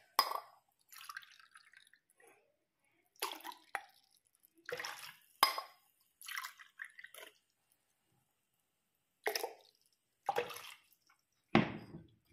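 Water heating in a nonstick pan on an electric hob: irregular short drip-like pops and ticks, about eight of them, separated by quiet gaps.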